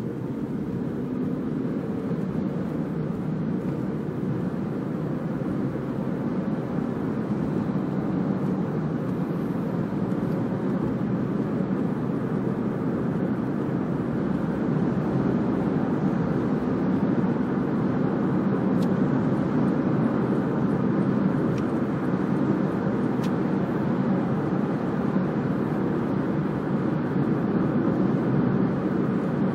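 Steady car cabin noise while driving: a low rumble of road, tyre and engine noise that grows a little louder about halfway through.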